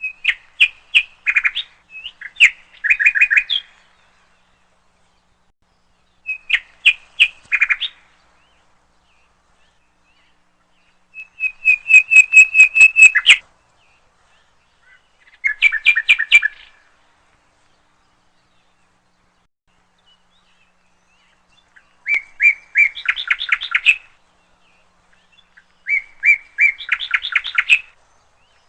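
A songbird singing in short phrases of rapid, repeated chirping notes, six or seven phrases each lasting a second or two, with pauses of a few seconds between them.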